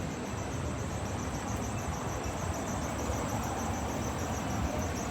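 Roadside ambience: steady traffic rumble with a high, evenly pulsing buzz over it.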